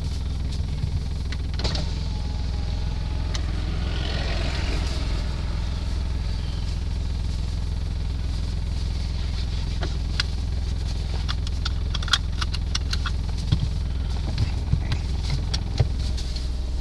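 Car running, heard from inside the cabin: a steady low engine and road drone, with a few light clicks and taps in the second half.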